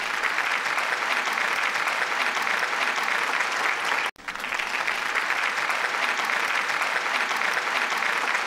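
Crowd applause, a steady dense clapping that drops out for an instant about four seconds in.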